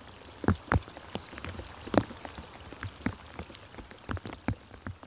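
Irregular dry snaps and crackles of twigs and dead leaves underfoot, two or three a second, with one sharper crack about two seconds in.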